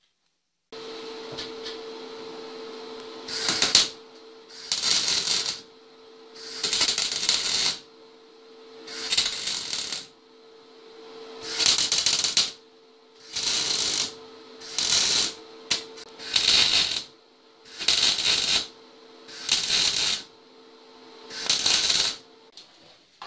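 Electric arc welding: about eleven short bursts of crackling and sizzling as the arc is struck and held for a tack or short bead, then broken each time. A steady hum runs underneath throughout.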